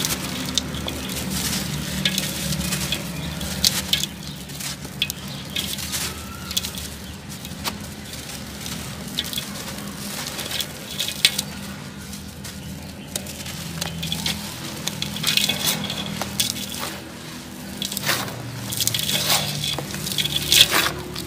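Dry, dusty sand-cement chunks crunching and crumbling between the hands, with a stream of small crackles and grit pattering down into a basin.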